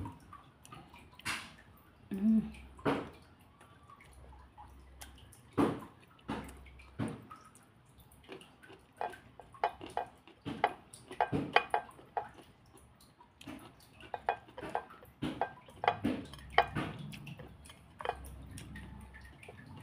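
Close-up eating sounds: wet chewing and mouth smacks in an irregular run of short clicks, with a few light clinks of dishes.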